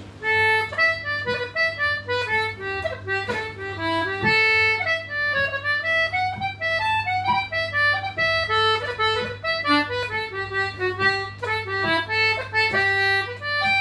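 Anglo concertina playing the first part of a reel very slowly, a single melody line of separate notes.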